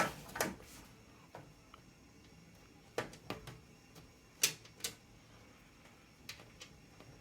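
Sharp clicks and taps of a screwdriver and screws against a PC case fan's frame and the case as the fan screws are being driven, several of them coming in pairs a few tenths of a second apart.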